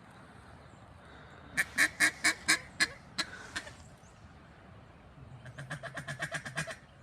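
Duck quacking in two runs: about eight loud quacks that slow and trail off, then a quick, quieter chatter of about a dozen notes that builds and stops.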